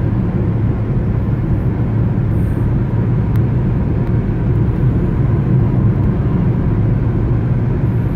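Car driving steadily along a highway, heard from inside the cabin: an even, low rumble of road and engine noise.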